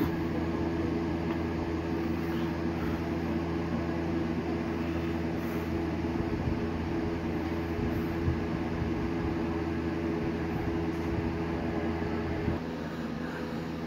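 Steady mechanical hum of a running household machine, made of several fixed low tones, which drops to a lower level near the end.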